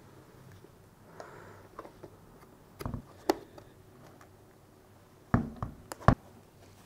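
Hands pressing and rubbing a stick-on rubber grip pad onto a Onewheel's grip-taped foot pad, with a few sharp taps and knocks, the loudest near the end.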